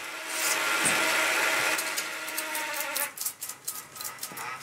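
Revox B77 reel-to-reel's tape counter mechanism buzzing and whirring as the reels spin fast, a noise the owner takes for loose counter gears vibrating. About three seconds in, the whir drops away into a run of irregular clicks and rattles.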